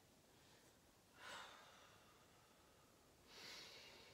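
Faint deep breaths from a woman: one breath about a second in, and another starting near the end, with quiet between them.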